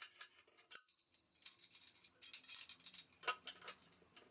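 Metal drill-press parts clinking as the rack and collar are fitted onto the column, with one metal piece ringing out about a second in and fading over about a second and a half.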